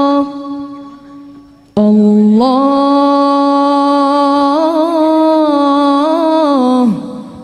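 Background Arabic devotional song (nasheed): a solo voice singing long held notes. One note fades away just after the start. A new phrase begins near two seconds in, steps up, wavers, and slides down to its end near the end.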